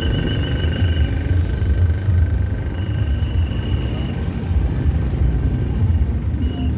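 Low, steady rumble of a bus engine running close by, with a thin high whine that drops out and returns twice.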